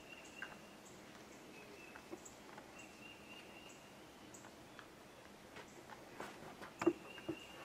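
Quiet rural outdoor ambience: a thin, high-pitched call, an insect or bird, that comes and goes, with faint scattered clicks and a few louder knocks near the end.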